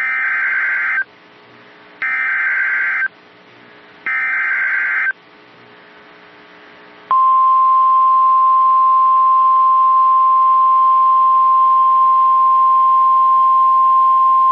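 Emergency alert SAME header: three one-second bursts of warbling digital data tones, a second apart, followed about two seconds later by the steady single-pitch 1050 Hz NOAA Weather Radio warning alarm tone. This sequence marks the start of a new warning broadcast.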